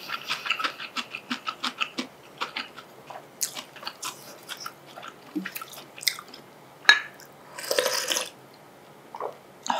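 Close-miked eating: rapid chewing with many small mouth clicks in the first two seconds, thinning to scattered clicks, then a short slurp of ramyeon broth from a wooden ladle about eight seconds in.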